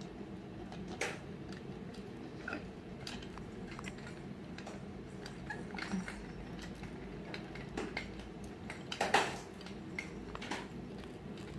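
Scattered light clicks and taps, the loudest a little after nine seconds in, over a steady low hum.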